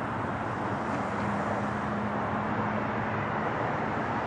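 Steady roar of a Boeing 767's twin jet engines on approach with its landing gear down, with a faint steady hum underneath.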